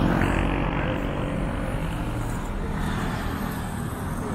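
City street traffic noise: a motor vehicle engine running close by, its hum fading in the first second, over the steady rumble of road traffic.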